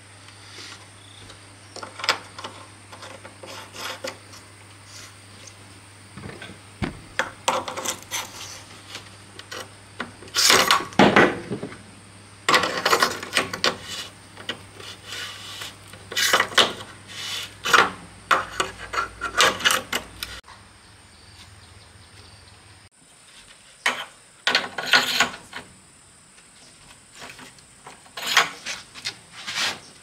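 Irregular clatter of knocks and scrapes from hard objects being handled or worked, in bursts with quieter gaps between.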